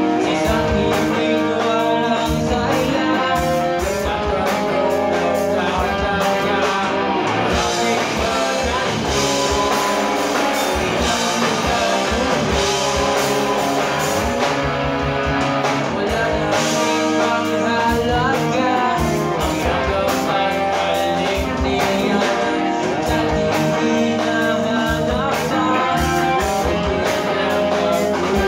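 Live rock band playing: electric guitars and a drum kit, with a male singer singing into the microphone.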